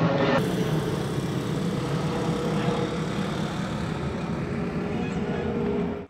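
Jet airliner flying low overhead: a loud, steady engine noise with a faint held whine in it.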